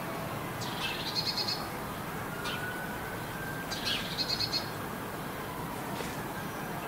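A small songbird singing twice, about three seconds apart. Each phrase is a sharp high note falling into a short, rapid trill.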